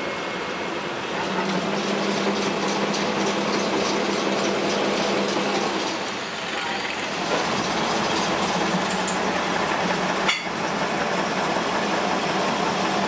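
Metal lathe running, spinning a steel bar while it is oiled and thread-cut: a steady mechanical din with a low hum through most of it. One sharp knock about ten seconds in.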